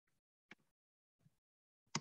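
Near silence, broken by a few faint, brief, irregular sounds.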